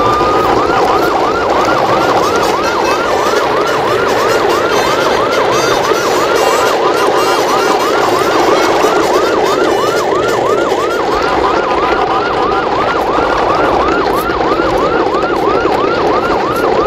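A siren rising briefly, then yelping in quick repeated up-and-down pitch sweeps, about three a second, over a steady rushing noise.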